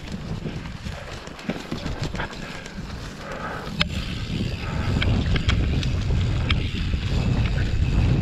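Mountain bike riding down dirt singletrack: wind rumbling on the microphone over tyre noise, with scattered clicks and knocks from the bike's chain and frame. The rumble grows louder about halfway through as the bike picks up speed.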